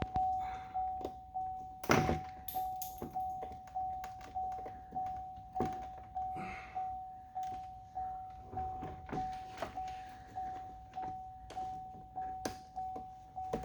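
Truck's warning chime ringing over and over on one tone, a little under two chimes a second, with the ignition on and the driver's door open. Over it come a few knocks of door parts being handled, the loudest about two seconds in.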